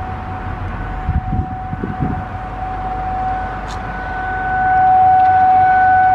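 Federal Signal 508 outdoor warning siren sounding the alert signal: one steady, unwavering tone. It grows louder about two thirds of the way through as the rotating siren head turns toward the listener. A few low bumps come about a second in.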